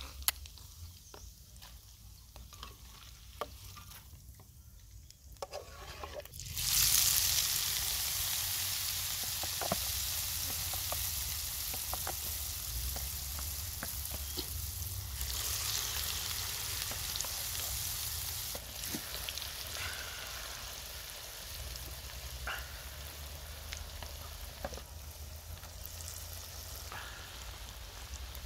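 Flour-battered eggs deep-frying in a pan of hot oil. The sizzle jumps up suddenly about six seconds in, swells again around fifteen seconds, then eases slowly. A metal spoon clicks against the pan now and then, mostly in the quieter opening seconds.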